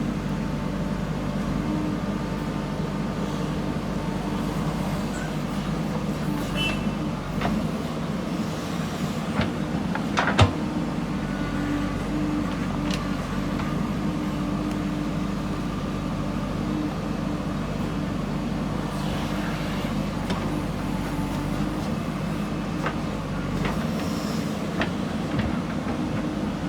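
Diesel engine of a JCB backhoe loader running steadily while it works, with scattered knocks and one loud, sharp clank about ten seconds in.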